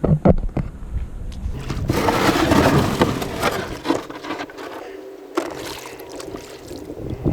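Water splashing and sloshing around a Mokai jet boat, with a few knocks at the start. Later a low steady hum comes in, like the boat's engine running.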